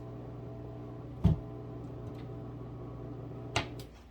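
Portable countertop dishwasher running with a steady motor hum, with a sharp knock about a second in and another click just before the hum cuts off near the end.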